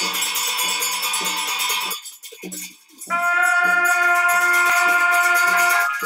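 Tibetan Buddhist ritual music: a long held horn note over regular drum beats. The note breaks off about two seconds in, leaving a few drum beats, and a second held horn note comes in about three seconds in.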